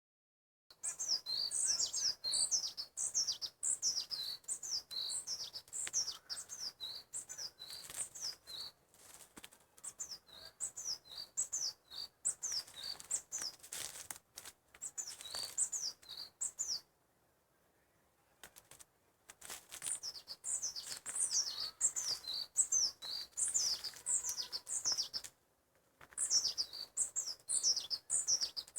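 Songbird chirping: rapid high chirps, each sliding down in pitch, in long runs that break off about seventeen seconds in and again briefly near the end.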